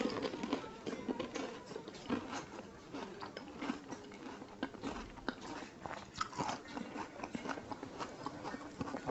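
A person chewing a mouthful of fuchka (pani puri) close to a lapel mic: the crisp fried shell crunches in many small irregular cracks as it is chewed down.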